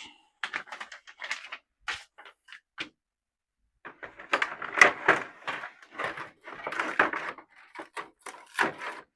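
Packaging being handled while parts are unboxed: scattered light clicks and rustles, then from about four seconds in a stretch of denser crinkling and rustling.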